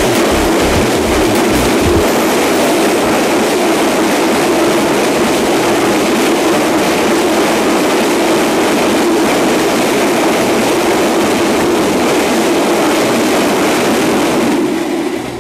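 Freight train of boxcars rolling past close by: a loud, steady rumble and rattle of the wagons on the rails, with a run of wheel clacks over the rail joints in the first two seconds. The noise falls away near the end as the last wagon passes.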